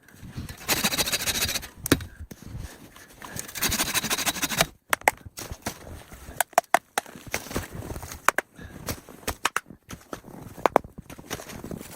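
Two long scraping rushes a few seconds apart, followed by a run of short, sharp clicks and knocks.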